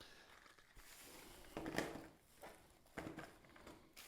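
Faint handling noises from packaged fishing lures being picked up and moved: a few soft knocks and rustles, the loudest about two seconds in.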